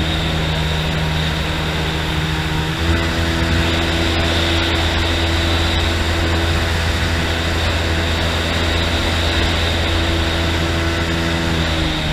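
Homemade jet boat's engine running under way, with a steady hiss of spray. About three seconds in the engine note steps up and holds steady, then drops again right at the end.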